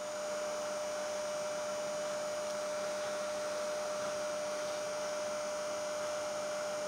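Steady electrical hum with one constant tone and a light hiss, unchanging throughout: background noise in the recording.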